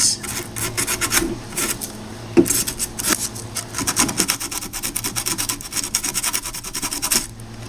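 Hand-held sandpaper rubbed back and forth over a circuit board in quick, short strokes, sanding the ends of a cracked copper trace down to bare copper so solder will stick. A single light knock about two and a half seconds in.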